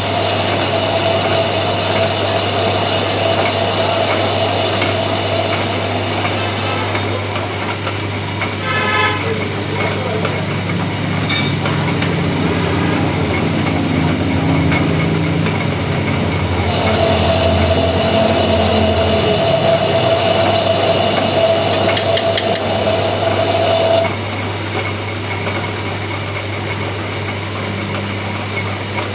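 Metal lathe running under a steady hum, with a high whining tone for several seconds that stops and comes back about halfway through.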